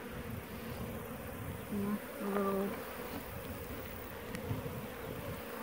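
Honeybees buzzing steadily around an open hive, with two short, louder buzzes about two seconds in from bees flying close.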